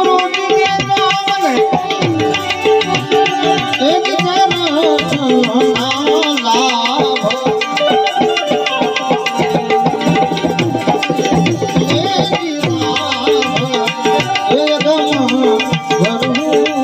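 Indian devotional music: fast tabla playing under a wavering instrumental melody, with steady held notes beneath.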